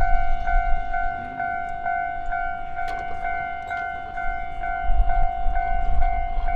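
Japanese railway level-crossing warning alarm ringing its repeated clang, about two strokes a second. Under it a low rumble that swells about five seconds in.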